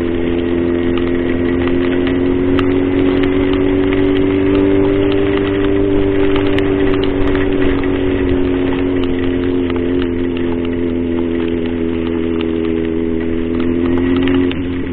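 Yamaha XJ6's 600 cc inline-four engine running at a steady cruise, over a steady hiss of wind and wet road. The engine note drops off just before the end.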